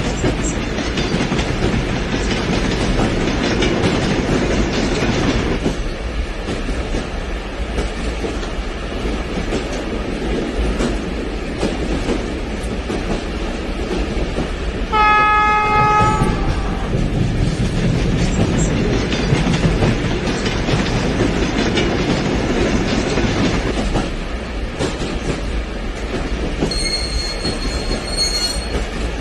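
HO scale model DF4 diesel passenger train running over the track with a steady rumble and wheel clatter. Its horn sounds once, for about a second and a half, about halfway through, and a short high-pitched tone sounds near the end.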